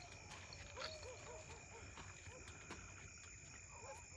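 Faint night chorus of insects such as crickets, a steady high trill, with short rising-and-falling calls repeating irregularly beneath it and a few soft clicks.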